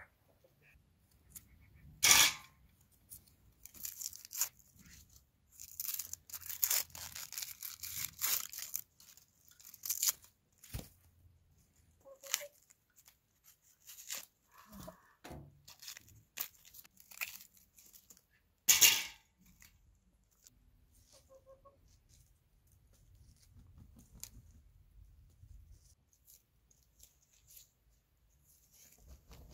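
Dry onion skins crackling and tearing as they are peeled off by hand, in irregular bursts with two loud rips, one about two seconds in and one around two-thirds of the way through.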